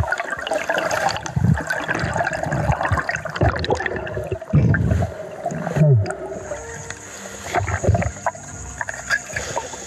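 Muffled underwater sounds: irregular bubbling and gurgling pulses from a diver's exhaled breath, with scattered clicks and knocks as objects are handled on the bottom.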